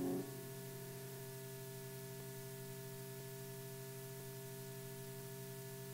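Steady low electrical hum with faint hiss, the background noise of an old film soundtrack. The last of the background music cuts off a moment in.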